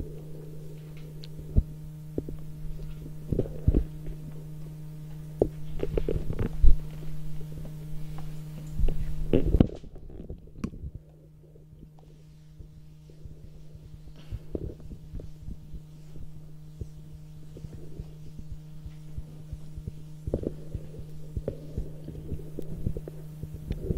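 Steady low electrical hum, with scattered knocks and rubbing as handwriting is wiped off a board with an eraser. The hum cuts out briefly before the midpoint.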